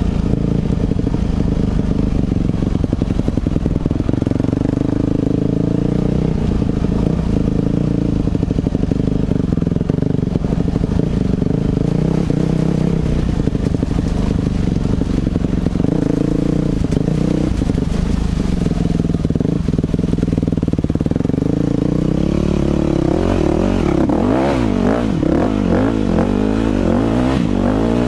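2006 Yamaha 250 dirt bike's single-cylinder engine running at a steady part throttle while riding a dirt trail. About 23 seconds in, the revs start rising and falling quickly as the throttle is blipped.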